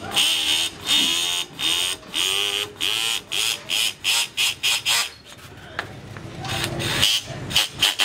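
Fine P320 sandpaper on a sanding block rasping against a metal air-horn part in quick back-and-forth strokes, about two to three a second. The strokes pause for a moment about five seconds in, then a few more follow near the end.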